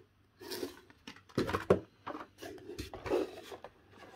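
Blister-carded Hot Wheels cars and a cardboard shipping box being handled: irregular rustling of card and plastic with a few sharp knocks, the loudest about one and a half seconds in.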